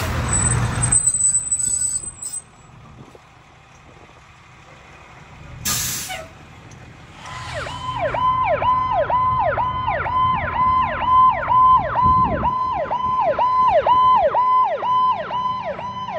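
A fire truck's engine runs loudly as it passes close by, then fades. A short air-brake hiss follows, then an electronic siren comes in about halfway through: a steady high tone that dips and snaps back about twice a second.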